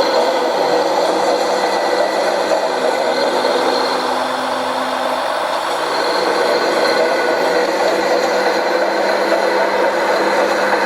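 Radio-controlled scale truck running with a steady engine-like drone. An extra steady hum joins from about three seconds in for roughly two seconds.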